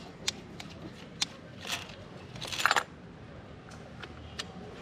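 Steel open-end spanner clinking against the high-pressure diesel line union nuts as they are undone: a few sharp metallic clicks, with a longer metallic scrape and clatter about two and a half seconds in.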